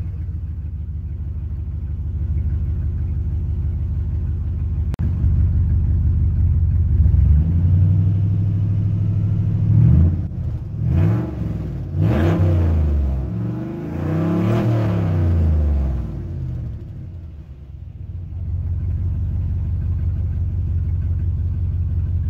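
Chevrolet Silverado V8 running with no exhaust pipe or muffler after the catalytic converters, loud at idle. It is revved several times between about ten and sixteen seconds in, then drops back to a steady idle.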